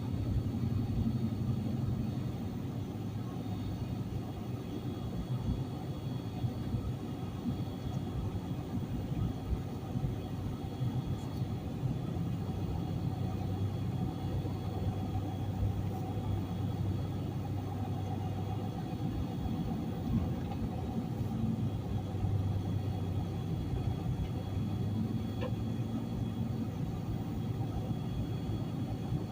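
Car engine and road noise heard from inside the cabin while driving: a steady low rumble whose pitch shifts a little as the speed changes, with the heater blower running.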